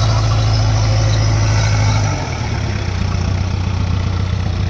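Heavy diesel engine running steadily, easing off about two seconds in and then running on at a lower level.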